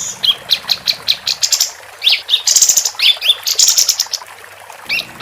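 Female kapas tembak singing a busy, rapid chatter: short rising whistled notes interleaved with fast high trills, pausing briefly near the end before starting again.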